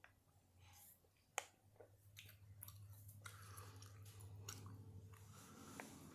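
Faint chewing of nicotine gum, soft scattered mouth clicks, over a low steady hum that fades out about five seconds in.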